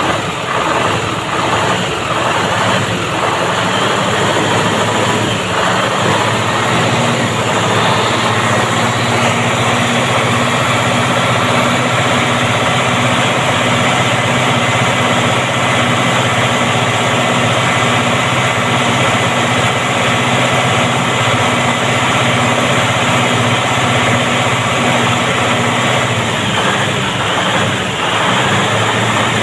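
Truck engine idling steadily, with an even, unbroken running sound and no horn blast.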